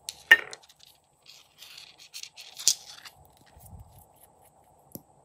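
Small plastic nail polish bottles being handled and the cap twisted off one: a sharp click just after the start, crackly scraping and clicking through the middle with another sharp click a little before three seconds in, and a small tick near the end.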